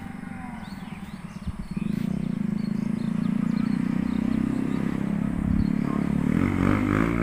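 A small motorcycle engine approaching, growing louder from about two seconds in and passing close near the end, its pitch dropping as it goes by. Birds chirp faintly in the first seconds.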